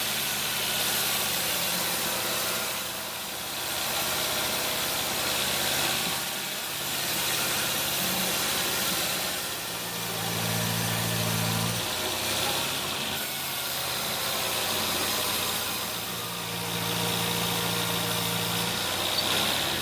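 Sawmill machinery running steadily: an engine at a constant speed, its low hum swelling and easing slightly every few seconds.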